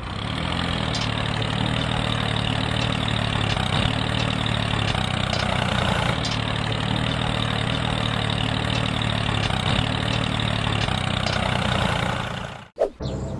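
Tractor engine idling steadily, starting abruptly and cutting off shortly before the end.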